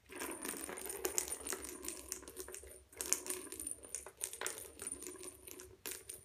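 A small hard toy ball rolling and clattering across a hard floor. It rattles with many sharp clicks and a faint ringing, stops for a moment about three seconds in, then rattles on.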